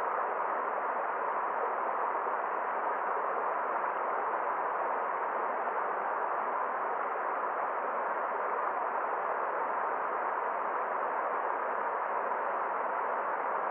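Forest stream water flowing, a steady unbroken rushing with no splashes or changes.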